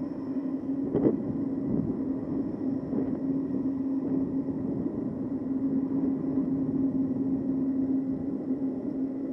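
Electric bike riding along a paved road: its motor gives a steady, even-pitched hum over the rumble of wind and tyres, with a single knock about a second in.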